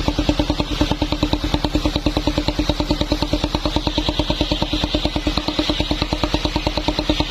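Engine idling steadily with an even, rapid beat of about eight pulses a second.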